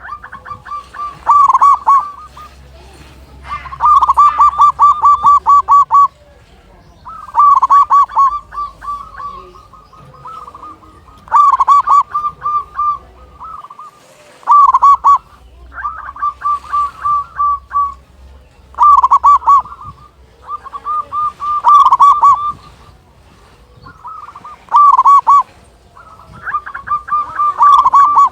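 Zebra dove (local perkutut) singing: phrase after phrase of rapid, pulsed cooing notes, about ten phrases, each one to two seconds long with short pauses between.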